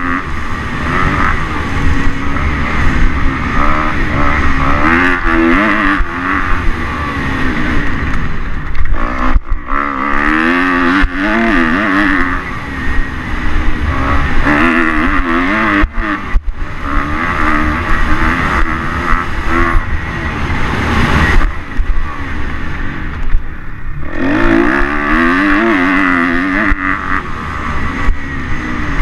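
Kawasaki KX 250 motocross bike's engine ridden hard, its pitch sweeping up and down again and again with throttle and gear changes, with a few brief drops in the engine note. A steady wind rumble on the on-board microphone runs underneath.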